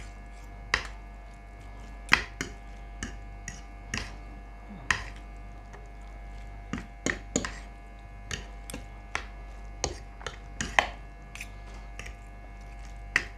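Metal fork and chopsticks clinking against a plate as a heap of instant noodles is tossed and mixed: irregular sharp clinks about once or twice a second, with a short pause midway, over a faint steady hum.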